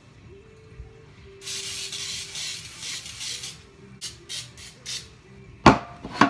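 Aerosol baking spray hissing from the can: one long spray of about two seconds, then four short spurts. Near the end come two sharp knocks, louder than the spray.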